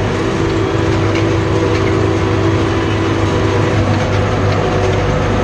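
Tractor engine running steadily from inside the cab, with a continuous clattering rattle from the cab and the tined implement it pulls over the field.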